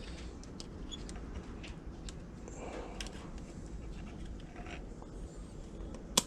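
Quiet handling of small plastic instrument-cluster parts by hand, with light scattered ticks and one sharp click a little after six seconds.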